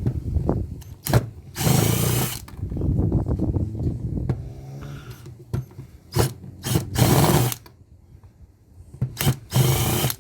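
Power drill run in several short bursts to back out screws from plugs and switches, with brief handling noise between the bursts.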